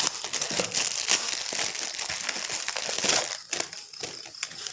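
Parcel packaging crinkling and rustling as it is unwrapped by hand, dense for about three seconds, then quieter and more scattered.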